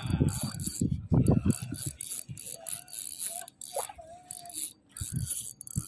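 Spinning reel being cranked, its gears rattling and clicking, with wind buffeting the microphone in the first couple of seconds.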